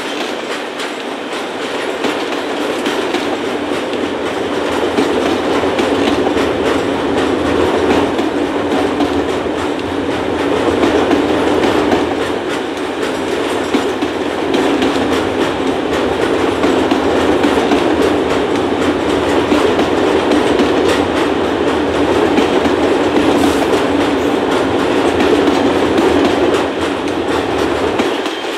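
Freight train wagons rolling past on the rails in a long, steady rolling rumble of wheels on track, easing off slightly near the end.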